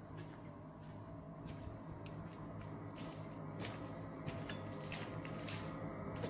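Footsteps crunching on rubble and grit underfoot: irregular crunches and clicks, more frequent in the second half, over a steady low hum.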